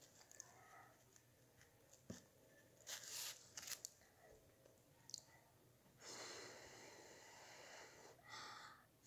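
Faint sounds of a child eating with a spoon: a few soft clicks and mouth smacks, then a long breath out and a shorter one as the spoonful is held at her lips.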